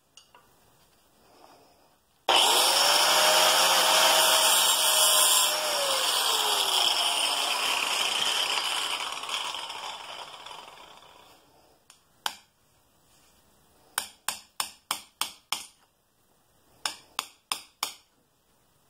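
High-speed rotary grinding tool cutting into the old seized worm gear of a Bridgeport mill head, with a hissing grind over a steady motor whine. After about three seconds it is switched off and the whine falls away as the tool spins down. Then come a quick run of six sharp taps and, a little later, four more.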